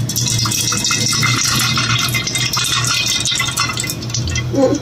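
Cooking oil poured into a hot kadai, crackling and spitting in a dense sizzle that thins out near the end, over a low steady hum.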